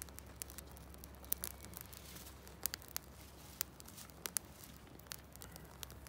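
Pine needles and small twigs crackling as they burn in a small folding steel twig stove: quiet, irregular sharp pops and ticks, several a second, with a few louder snaps.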